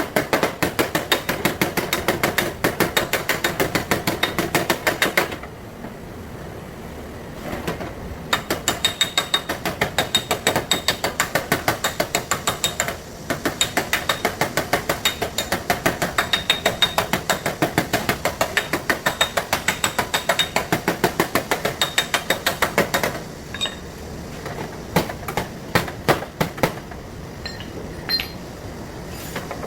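Hammer tapping rapidly on the sheet-steel fender of a Volvo V60, beating out a dent, in long runs of several blows a second with a few short pauses and slower, scattered taps near the end.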